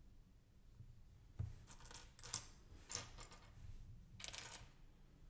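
Loose plastic LEGO bricks clicking and clattering against each other as a hand sifts through a pile of pieces, in a few short bursts starting about a second and a half in.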